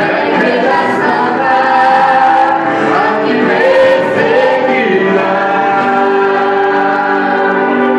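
A group of voices singing a Christian worship song together, holding long notes.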